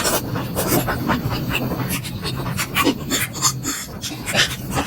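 Close-miked eating sounds of someone chewing momos: irregular wet mouth smacks and clicks with breathing.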